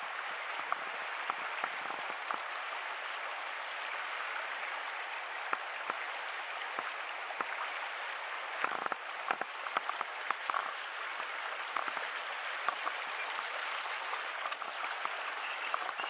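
Shallow river rapids rushing steadily over stones, with many small splashes and clicks of the broken water and a brief cluster of louder ones about nine seconds in.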